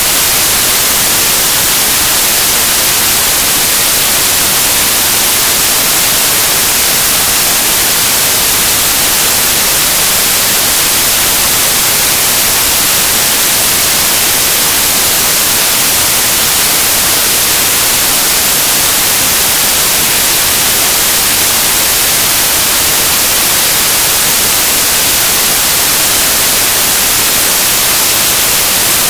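Loud, even static hiss that does not change, strongest in the highest pitches, with no other sound standing out over it.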